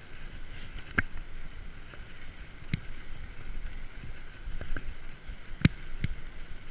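Mountain bike rolling over brick paving: a steady rush of tyre and wind noise on the microphone, broken by about half a dozen sharp knocks and rattles as the bike jolts over the paving, the loudest a little over two-thirds of the way through.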